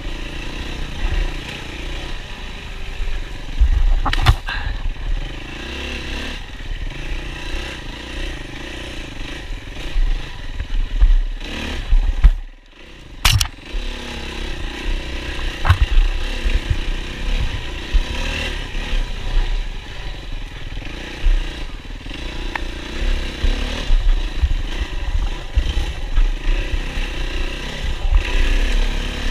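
Yamaha WR450F's single-cylinder four-stroke engine running under race riding, the throttle opening and closing again and again, with knocks and clatter from the bike. About halfway through the sound briefly drops away, and a sharp knock follows.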